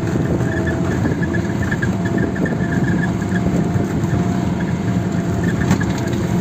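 Car engine running steadily, heard from inside the cabin as a continuous low rumble.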